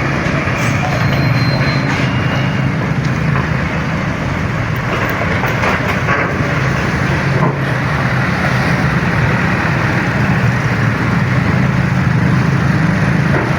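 Steady motor vehicle engine and road noise, a constant low hum without horns or a clear rise or fall.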